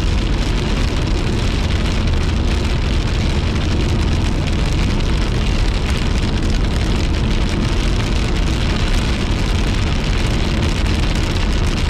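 Rain and pea-sized hail hitting the windshield and roof of a moving car, heard from inside the cabin over steady road and engine rumble.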